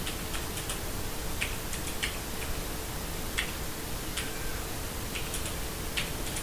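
Key presses on an HK Gaming GK61 mechanical keyboard with yellow switches: separate sharp clicks at an uneven, unhurried pace, a dozen or so strokes.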